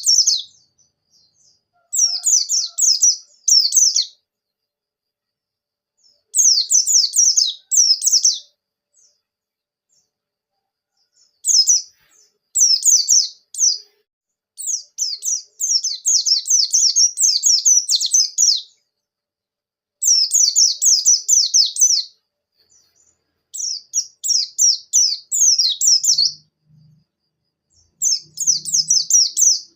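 Oriental white-eye of the buxtoni race singing: high, fast twittering song in bouts of about two to three seconds, separated by short silences.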